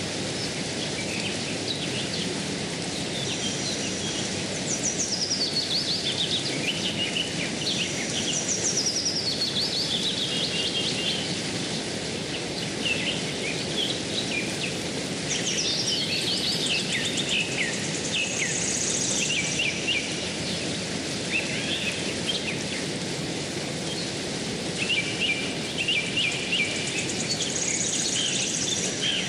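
Steady rush of flowing stream water with birds singing over it, in repeated phrases of high notes that fall in pitch, a few seconds apart.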